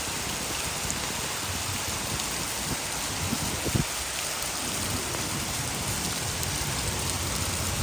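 Heavy rain falling steadily, an even hiss, with a couple of short low thumps a little before the middle.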